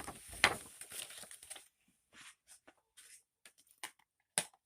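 Plastic sleeve crinkling and crackling as it is handled, loudest about half a second in, then scattered short crinkles and clicks.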